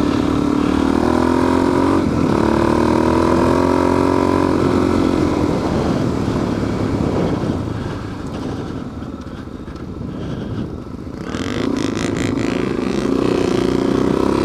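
Suzuki DR-Z400S single-cylinder four-stroke dirt bike engine pulling through sand at high revs. Its pitch climbs, dips about two seconds in and climbs again. Past the middle it eases off and goes quieter, then picks up again near the end.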